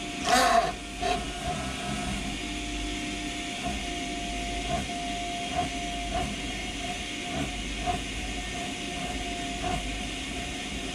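Oil pump running with a steady hum and hiss while it fills a new spin-on oil filter with clean engine oil through a hose nozzle. A short loud rush of noise comes about half a second in, and a few small blips follow.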